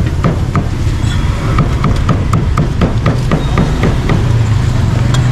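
Cleaver chopping meat on a wooden chopping block, steady rapid chops about three a second.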